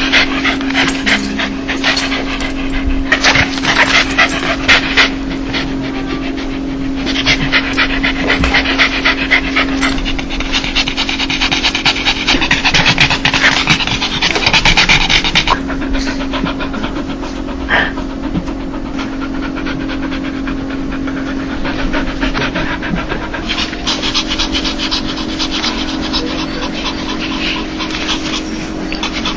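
A dog panting rapidly and continuously: quick, huffing breaths in a fast even rhythm, the panting 'laugh' a dog makes when it is happy and excited.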